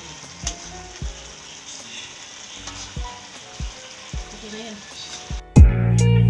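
Thick marinade sauce sizzling and bubbling around a whole chicken in a pan, with a few light knocks. Near the end, loud guitar-and-drum music cuts in.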